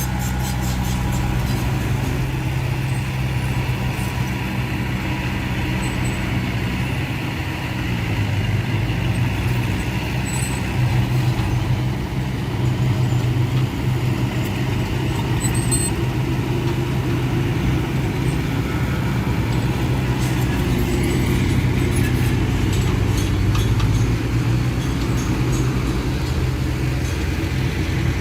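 Heavy diesel engine of earthmoving machinery running steadily, a deep drone that swells slightly now and then.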